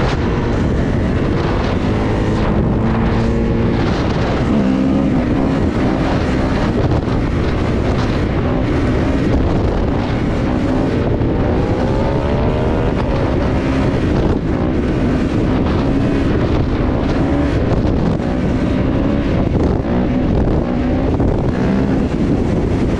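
Kawasaki KX450 dirt bike's four-stroke single-cylinder engine running under way, its pitch rising and falling as it revs, with heavy wind noise on the microphone.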